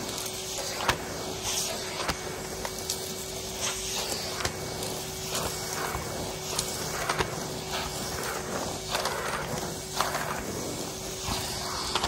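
Red Numatic cylinder vacuum cleaner running with a steady hum while its floor tool is pushed back and forth over a dirty rug, with repeated short scrapes and clicks as it picks up dirt and fluff.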